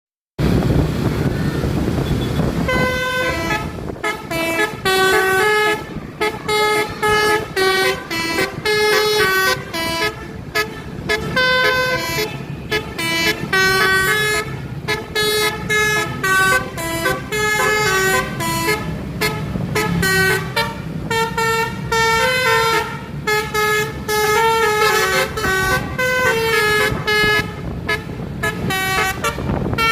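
A bus's 'telolet basuri' multi-tone musical air horn playing a tune of short honked notes in quick phrases with brief pauses. The tune starts about two and a half seconds in, after a moment of vehicle noise.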